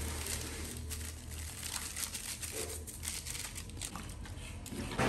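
Carrots and mustard-green stems crackling and sizzling in a wok, a steady fine crackle.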